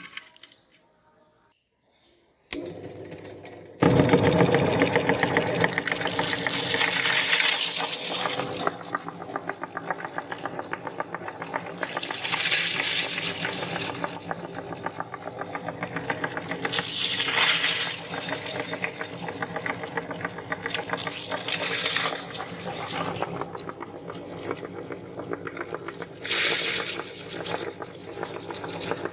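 Electric meat grinder switched on a couple of seconds in, its motor running with a steady hum while chocolate cereal crackles as it is crushed. The crunching swells louder every few seconds.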